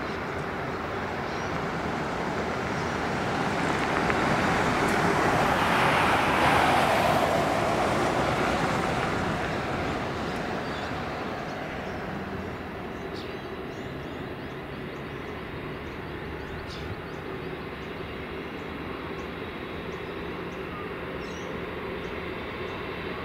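Jet engine noise at an airport, swelling to a peak about six seconds in and slowly fading, over a steady background hum.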